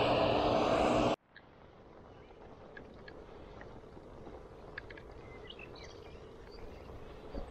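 Loud wind rush on the microphone of a moving bicycle, cutting off suddenly about a second in. After that comes a much quieter ride with faint road noise and small birds chirping now and then.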